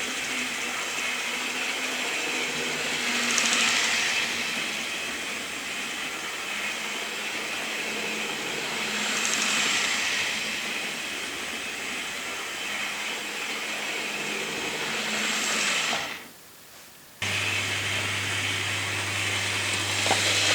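OO gauge model locomotive's small electric motor and worm gear whirring as it runs on the track, swelling louder about every six seconds, then stopping about three quarters of the way through; the worm gear is not yet oiled. A steady low hum follows.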